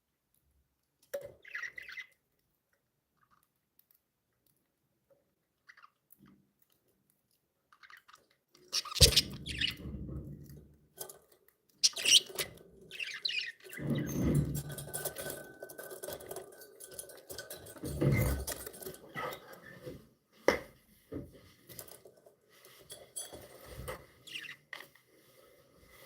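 Pet budgerigars making short chirps, with scratching, shuffling and several dull thumps. It is mostly quiet for the first eight seconds, then busy, with the loudest thumps about nine, fourteen and eighteen seconds in.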